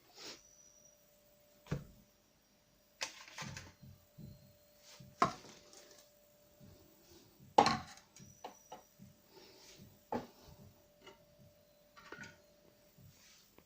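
Scattered clicks and knocks from the robot vacuum-mop's removed two-in-one dust compartment and water tank being handled, the loudest about halfway through, over a faint steady hum.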